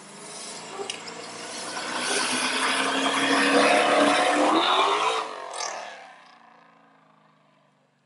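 Matte blue 2009 Mercedes-Benz C63 AMG with a full Innotech Performance Exhaust driving past. Its V8 grows louder as it approaches, drops in pitch as it goes by about five seconds in, then fades away.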